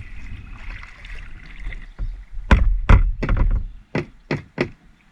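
A quick run of about eight sharp knocks on a kayak's hull, starting about halfway through and lasting around two seconds.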